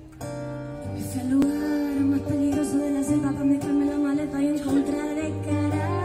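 Two acoustic guitars playing together, a chord struck right at the start, with a woman singing a held, wavering melody from about a second in.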